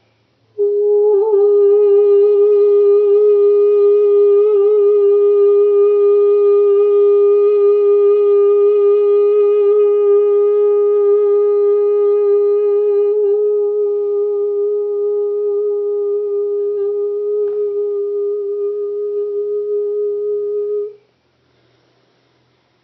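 A woman's voice singing one long, steady note, held for about twenty seconds before stopping sharply; the tone turns softer and duller about halfway through.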